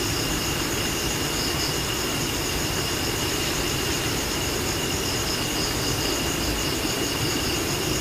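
Steady chorus of night insects: a continuous shrill trilling with a thin high tone over an even hiss, unchanging throughout.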